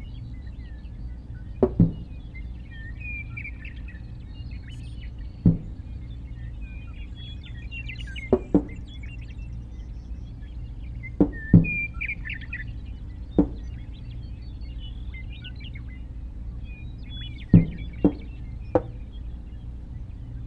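Birds chirping throughout, over a steady low hum, with about ten sharp knocks at irregular intervals, some in quick pairs; the knocks are the loudest sounds.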